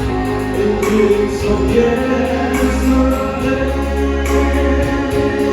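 A singer's voice over steady, loud backing music with a bass line.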